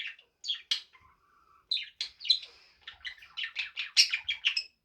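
Male budgerigar chattering to his reflection in a mirror: quick runs of short chirps and warbles, a brief lull about a second in, then a dense burst of rapid chirping.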